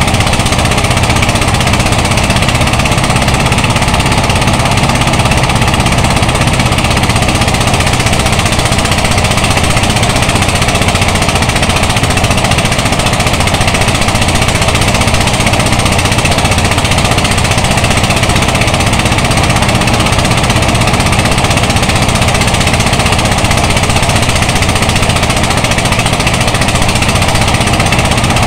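Engine-driven rice thresher running steadily under load, its engine and threshing drum making a loud, continuous rattling din as rice stalks are fed in.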